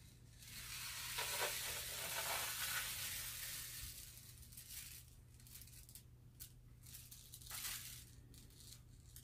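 Homemade cardboard-tube rain stick tipped slowly: rice grains sliding down the tube and striking the paper over the ends in a soft rushing patter like falling rain. It swells during the first few seconds, thins to scattered ticks, and swells again briefly near the end as the tube is turned the other way.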